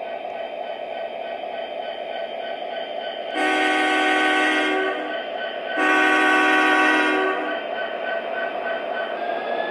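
Onboard sound system of an MTH O-gauge model of Union Pacific 4141, an SD70ACe diesel, playing two long horn blasts over its steady running diesel-engine sound.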